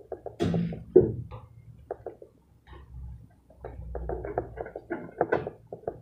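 Steel putty knives scraping skim coat across a concrete ceiling, with a run of short irregular clicks and taps as the blades work the compound. A louder, hissing scraping stroke comes about half a second in, and another at the very end.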